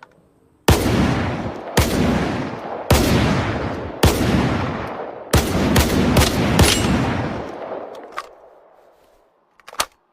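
Saiga-12K semi-automatic 12-gauge shotgun firing: four shots about a second apart, then four more in quicker succession, each with a long echoing tail. A sharp click sounds near the end.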